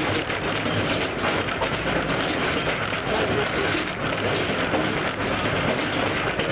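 Mine railcar running through a timbered underground gallery: a steady rattling rumble with no let-up.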